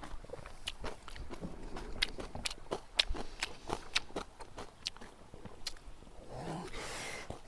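Close-up crunchy chewing of kimchi: crisp, irregular crackles several times a second as the pickled vegetables are bitten and chewed, with a longer hissing sound near the end.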